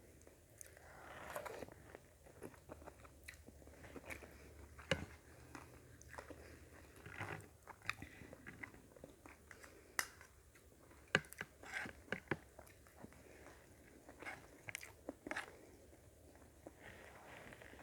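Close-miked chewing and biting of sautéed vegetables and rice, with soft crunches and many short sharp clicks, likely a teaspoon against the plate, scattered throughout.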